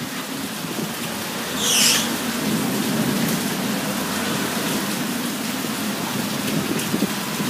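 Heavy rain pouring down steadily, with a short, louder hiss about two seconds in.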